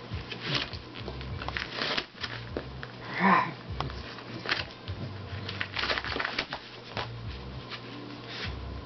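A Pembroke Welsh corgi chewing and tearing at a cardboard cereal box: a run of short crackles and rips of the paperboard, with one louder burst about three seconds in.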